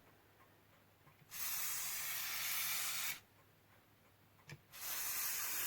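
Aerosol cleaner sprayed in two hissing bursts: a steady one of about two seconds, then a second starting near the end.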